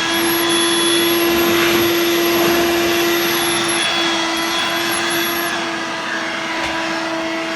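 Dirt Devil Vibe corded bagless vacuum, used as a handheld, running steadily: a constant motor hum and whine over rushing air.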